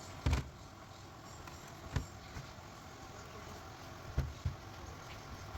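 A few separate short knocks and clicks over a low steady background hum.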